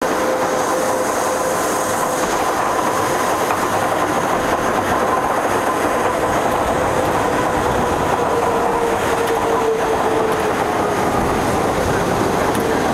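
Pilatus Railway electric cog-wheel railcar running on its steep rack track: a steady running rumble of wheels and rack gearing, with a whine held near one pitch that sinks slightly in the second half.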